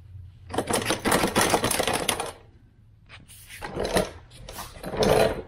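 Broken Powerbuilt mechanic's creeper being handled: clattering and rattling of its metal frame and caster mount. One busy spell of about two seconds, then a short pause, then two shorter spells.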